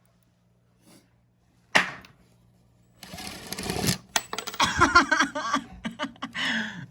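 Wooden chair parts and hardware being handled: one sharp knock, then a few seconds of busy clattering, clicks and knocks.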